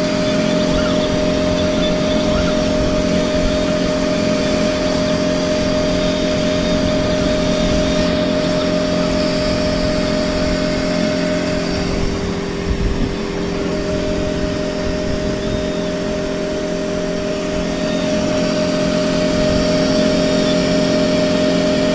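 Laser cutting machine running with a steady machine hum made of several constant tones, which dips slightly about midway.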